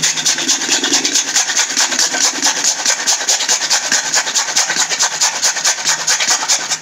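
Peeled raw potato grated on a flat stainless steel grater: a steady rasping scrape in quick, even strokes, about six a second.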